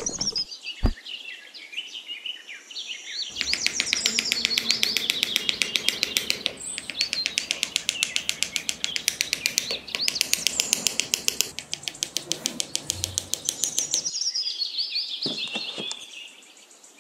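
Small birds chirping and singing. From about three seconds in, a fast, even clicking, several clicks a second, joins them and stops about three seconds before the end.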